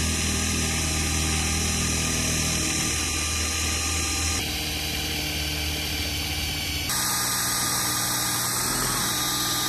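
DeWalt cordless drill running steadily under load, driving a drill-paddle propeller shaft in the water to push an inflatable raft. Its tone shifts abruptly about four and seven seconds in.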